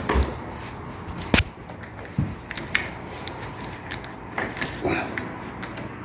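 Metal door-lock latch being pushed and seated into the bored hole in the edge of a wooden door: a few scattered clicks and knocks, the sharpest about a second and a half in.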